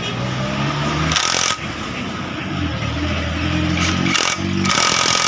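Cordless impact driver hammering on a scooter's front brake caliper mounting bolts in three short bursts: about a second in, briefly at about four seconds, and a longer one near the end, tightening the refitted caliper.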